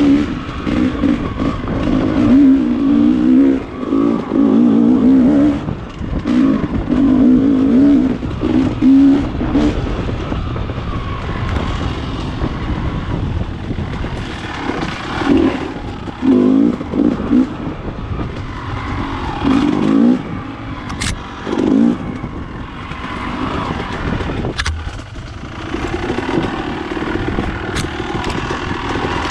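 Dirt bike engine revving in bursts as the throttle is worked on and off at low speed, near-continuous over the first ten seconds, then in shorter blips. A few sharp knocks come through in the second half.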